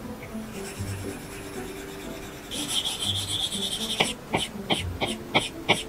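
Apple Pencil 2 tip scratching over an iPad Pro screen while shading. About midway comes a stretch of fast back-and-forth rubbing strokes, then near the end a quick run of about eight short, sharp strokes.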